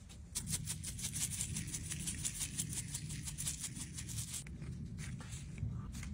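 Seasoning being ground or shaken out over raw potato slices in a pan: a fast run of crisp ticks starting just after the start and stopping about four and a half seconds in, over a steady low hum.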